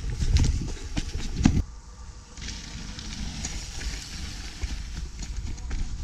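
Mountain bikes rolling over a dirt pump track, heard from a camera on a following rider: a low rumble of tyres and wind on the microphone, with sharp rattling knocks from the bike. About one and a half seconds in it drops to a quieter rumble with scattered clicks.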